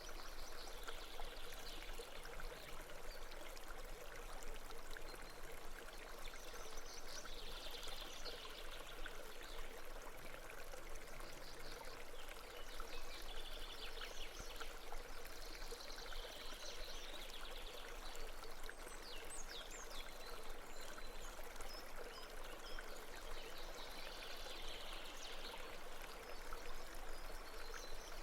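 Babbling brook, water flowing steadily, with short patches of higher chattering sound every few seconds.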